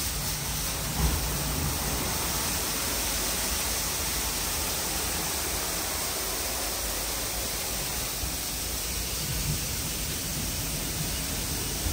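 WashTec SoftCare2Pro rollover car wash spraying water or cleaning liquid onto the car: a steady, even hiss like heavy rain.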